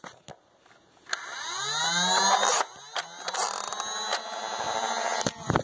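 Nerf Stryfe blaster's battery-powered flywheel motors revving twice with a whine. The first spin-up rises in pitch for about a second and a half. The second rev runs longer and steadier, and a few sharp clicks come near the end.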